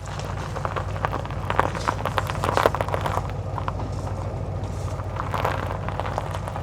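Car driving along a road: a steady low drone of engine and tyres, with many small clicks and rattles over it.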